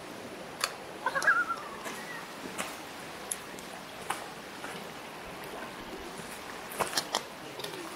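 Sharp plastic clicks and taps scattered through, from handheld ball launcher-and-catcher toys as a ball is flung and caught, with a cluster of them near the end. A short wavering high-pitched call comes about a second in, over the steady rush of a stream.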